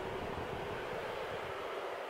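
Coffee roaster running, its blower and gas burner giving a steady rumbling hiss.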